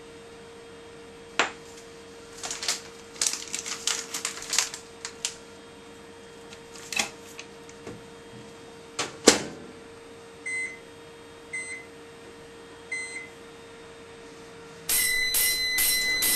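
Microwave oven humming steadily, with a run of sharp clicks and knocks from its door and controls. Then come three short, high beeps about a second apart, and electronic music starts near the end.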